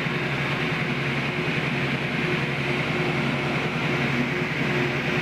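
GE top-load washing machine running its spin cycle with an empty tub: a steady motor-and-drum hum with a constant low tone and no grinding, its bearing area freshly repaired with a shield fitted.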